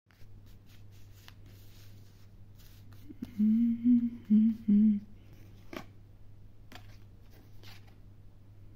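A person humming a short tune of about four held notes, between soft rustles and clicks of tarot cards being handled on a table. A few sharp clicks follow the humming, over a faint steady hum.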